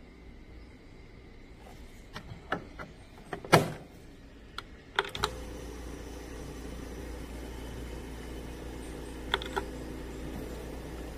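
Oxygen concentrator being handled: a few sharp clicks and one loud knock, then about five seconds in its compressor starts and runs with a steady low hum. Two quick clicks from its control-panel buttons come near the end.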